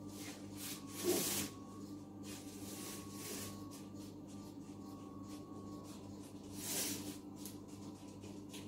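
A spoon scraping and pressing buttered digestive-biscuit crumbs into a round metal cake tin: a few short scrapes, the loudest about a second in, over a steady low hum.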